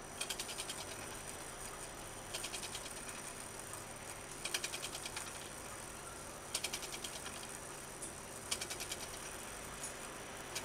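Brass clock movement's rebuilt striking train running in its first test: short bursts of rapid gear and ratchet clicking, each under a second long, about every two seconds.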